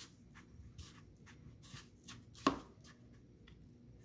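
Hand pressing a fish fillet into breadcrumbs in a bowl: faint, scattered crumbly rustles and ticks, with one sharp knock about two and a half seconds in.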